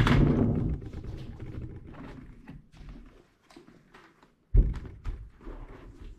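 Full-face motorcycle helmet set down on a table with a loud thunk, then handled and turned over with small knocks and rustles; a second thump comes about four and a half seconds in.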